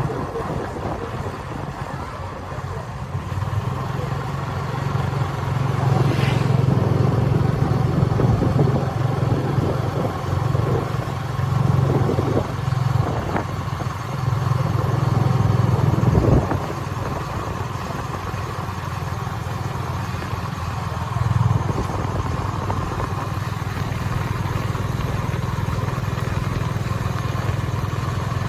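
A small engine running steadily with a low hum, with a few brief knocks about halfway through.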